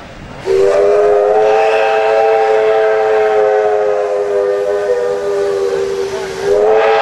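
Steam whistle of a Victorian Railways R class 4-6-4 Hudson locomotive: one long, steady blast of about six seconds, followed by a second blast that starts near the end.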